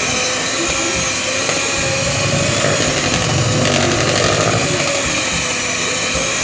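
Electric hand mixer running on its speed-5 setting, beaters whirring through cake batter in a bowl: a steady motor whine that wavers slightly in pitch.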